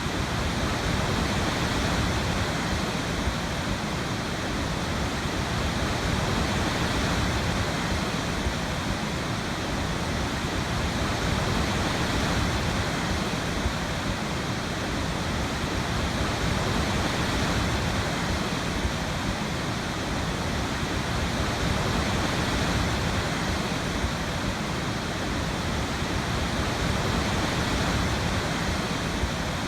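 Waterfall: a steady rush of falling water with slow, gentle swells in loudness.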